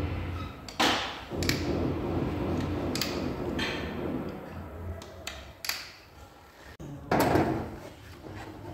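Repair-shop clatter: a steady low hum with a series of sharp knocks and clanks, the loudest about a second in and again near the end.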